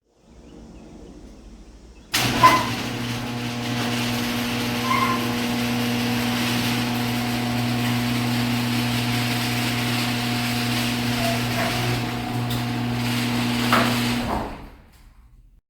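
Electric garage door opener cycling the door: it starts with a sudden clunk, runs with a steady motor hum for about twelve seconds, then stops with a click and the sound dies away.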